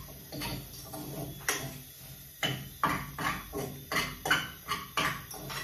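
A metal utensil knocks and scrapes against a small saucepan as food is stirred and mixed in it. The knocks are irregular, sparse at first, then come about two to three a second from about a second and a half in.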